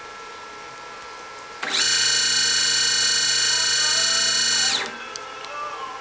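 Stepper motor turning a CNC rotary table at its maximum reliable feed rate: a loud, high-pitched whine of many stacked tones. It sweeps up in pitch about two seconds in, holds steady for about three seconds, then sweeps down and stops. A faint steady hum runs underneath before and after.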